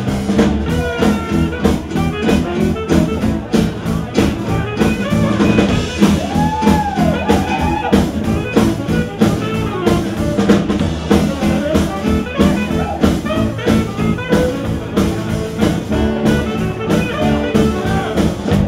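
Live blues band: a tenor saxophone plays a solo line with bends and slides over electric bass, drum kit and acoustic guitar keeping a steady beat.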